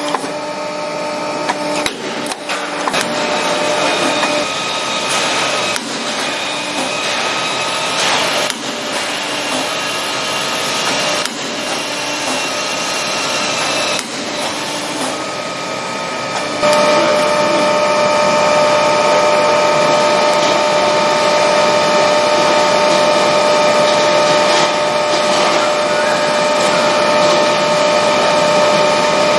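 CNC hydraulic tube-punching machine running with a steady machine whine. Irregular clicks and knocks come through over the first half. A little past halfway the whine turns louder and steadier.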